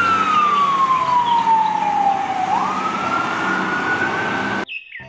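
Fire engine siren wailing: the tone falls slowly for about two and a half seconds, then swoops back up and holds until it cuts off suddenly near the end.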